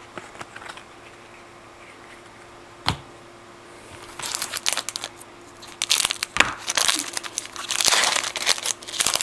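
A sealed trading-card pack being torn open, its wrapper crinkling in repeated bursts through the second half. There is one sharp knock about three seconds in.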